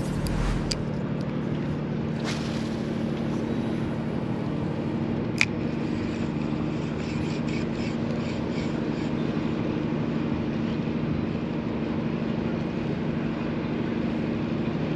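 Steady low hum of ships' engines in the harbour over a noisy background, with a few sharp clicks from the spinning reel, the loudest about five seconds in.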